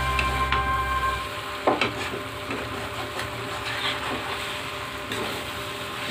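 Chicken curry masala sizzling in a kadai while a spatula stirs it and scrapes around the pan, with several short, sharper scrapes.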